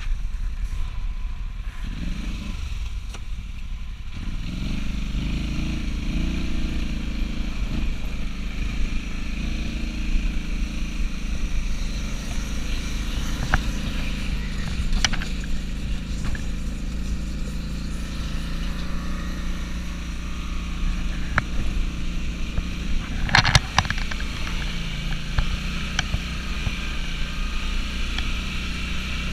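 Snowmobile engine revving up a few seconds in, then running steadily at speed, with a few sharp knocks along the way.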